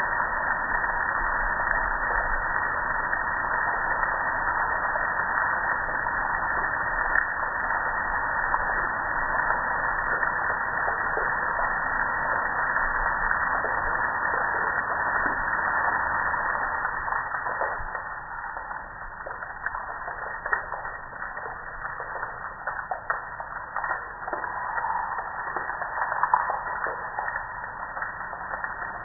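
Water spraying and splashing over a metal gas grill, a steady hiss that eases about two-thirds of the way through into a softer patter of drips and splatters.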